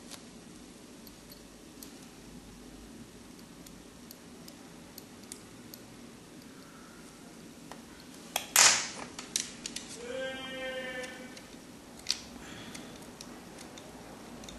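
Small clicks and handling noises of tools and phone parts during a phone touchscreen repair. A louder sharp scraping burst comes a little past the middle, followed by a few more clicks and a brief higher squeak-like tone.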